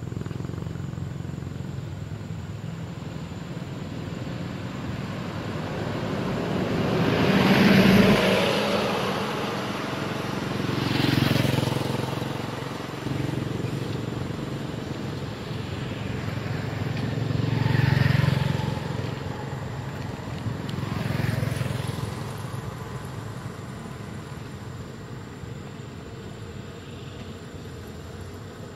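Road vehicles passing one after another, each engine noise swelling up and fading away, four times. The loudest pass is about eight seconds in.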